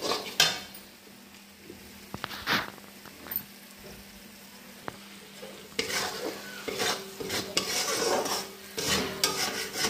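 Metal spatula scraping and stirring onions and masala as they fry in oil in a steel kadhai, with a light sizzle. A scrape at the start and a few light taps, then steady stirring strokes, about two a second, from about six seconds in.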